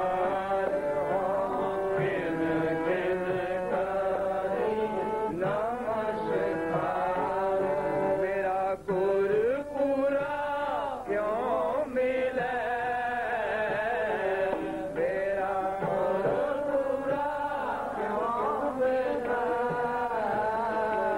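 Sikh kirtan: male voices singing a Gurbani hymn in a melodic chant, accompanied by harmonium.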